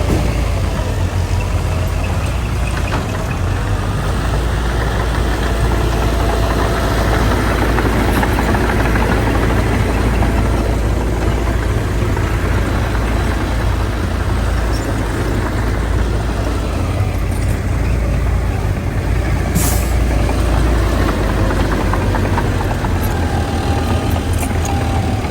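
Heavy diesel earth-moving machinery running steadily at a constant level, with a short sharp hiss about twenty seconds in.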